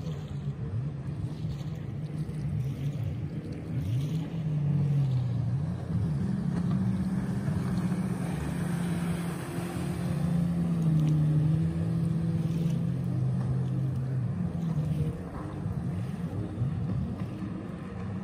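Jet ski engines running at speed, their pitch rising and falling as the riders throttle and turn, with the hiss of thrown spray. Louder about halfway through as the craft pass closest.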